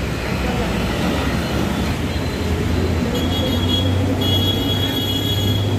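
Heavy rain and traffic on a wet road: tyres hissing through water, with the low drone of a bus engine passing. A thin high whine joins about three seconds in.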